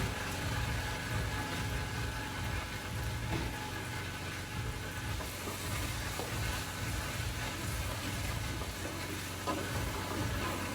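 A pot of jollof rice cooking on a stove: a steady low rumble with an even sizzling hiss, and a couple of faint light clicks.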